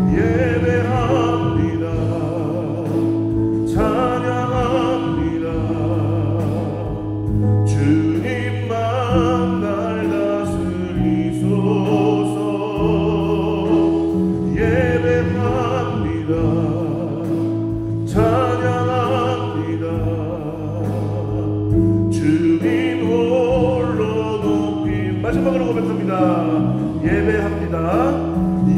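A Korean church praise team singing a gospel worship song with vibrato on held notes, accompanied by electric bass, keyboard and drums.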